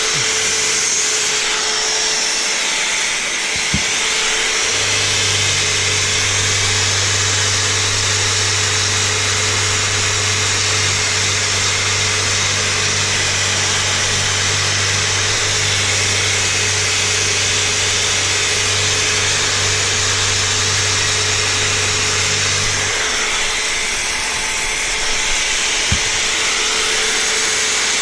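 Steady whir of a running electric machine. A low hum comes in about five seconds in and stops shortly before the end, with a couple of light knocks.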